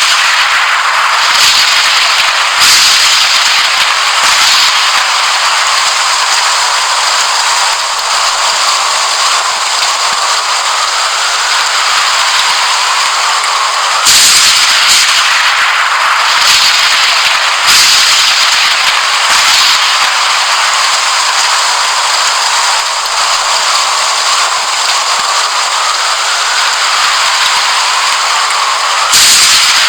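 Thunderstorm sound effect: steady hiss of heavy rain with sharp cracks of thunder, the strongest near three seconds in, around fourteen and eighteen seconds, and near the end. The pattern repeats about every fifteen seconds.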